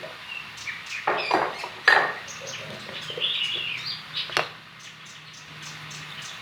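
Birds chirping in short calls, with a few sharp knocks: about a second in, near two seconds, and once more past four seconds.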